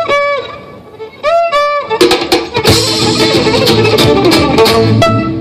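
Live violin and guitar music: two short violin phrases with sliding notes, then loud strummed chords with sharp accents.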